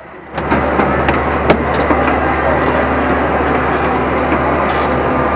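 Loud, steady machine noise with a low hum, starting suddenly about half a second in, with a few sharp clicks on top.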